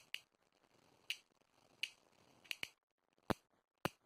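Plastic buttons or switches on a knockoff fidget cube being clicked: about eight sharp clicks at uneven intervals, with a quick double click about two and a half seconds in.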